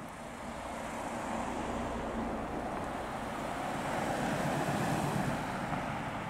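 Porsche cars driving slowly past in turn: a yellow Porsche 968's four-cylinder engine, then a black Porsche Cayenne, engine and tyre noise swelling to its loudest as the Cayenne goes by about four to five seconds in, then fading as it moves away.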